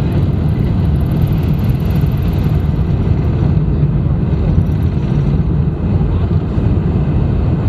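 Cabin noise of a Boeing 747-400 at take-off power: the four jet engines give a loud, steady low rumble as the airliner lifts off and climbs away.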